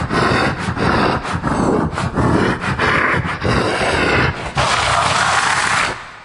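Monster creature sound effect, a sewer beast, growling in a string of rough, choppy snarls, then a longer unbroken growl near the end that fades away.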